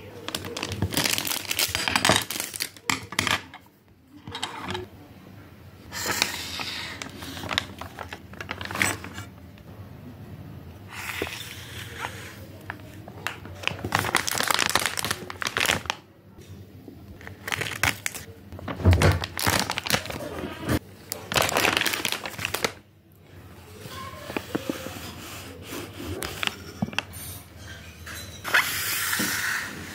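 Thin plastic stationery packaging crinkling and rustling in bursts as it is handled on a wooden desk, with occasional sharp knocks, the loudest about two-thirds of the way through.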